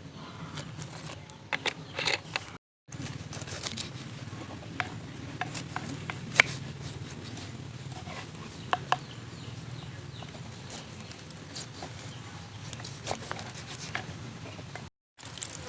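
Crab being eaten: scattered sharp cracks and clicks of shell being broken, a few loud single snaps among them, over a steady low background hum.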